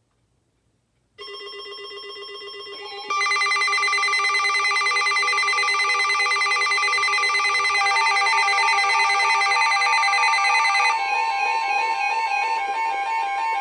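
Emergency Alert System alert tones: several steady electronic tones sounding together. They start about a second in and get louder as more tones join about three seconds in, and a pulsing tone pair comes in partway through.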